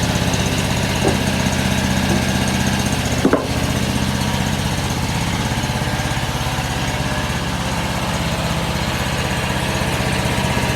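Homemade sawmill's engine running steadily under load as the blade slowly saws through a small walnut log, with a couple of brief clicks about one and three seconds in.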